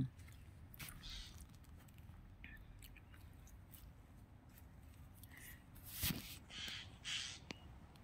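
Wind rumbling on the microphone, with a few faint, short bird calls and a single click about six seconds in.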